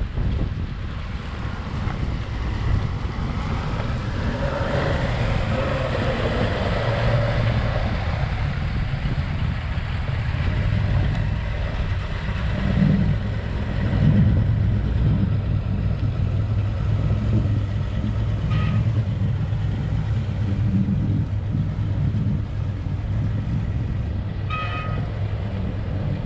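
Speedboat outboard motors running as the boat manoeuvres off a pontoon and accelerates away, a steady low engine drone.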